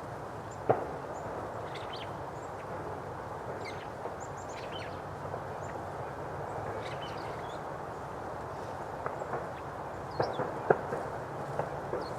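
Small birds chirping and calling with short, high, quick notes over a steady background hiss, with a few sharp taps, one about a second in and several close together near the end.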